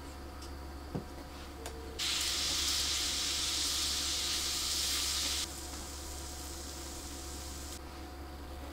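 Pink liquid mixture sizzling in a hot nonstick frying pan on an electric hot plate: a loud hiss starts suddenly about two seconds in and cuts off suddenly about three and a half seconds later. There is a light tap about a second in.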